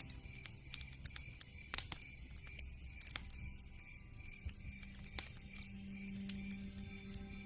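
Wood fire burning in a fireplace: logs crackling with irregular sharp pops, a few louder ones standing out, over a low rumble of flames.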